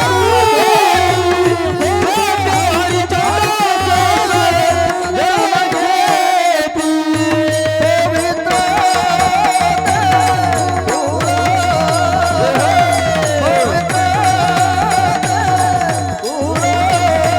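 Devotional kirtan music: a singer holds a long, wavering melodic line over a steady hand-drum beat.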